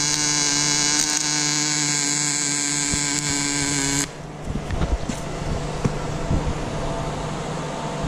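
MIG welding on steel tubing: the arc gives a steady buzz, and about four seconds in it changes to a crackling, spattering sizzle.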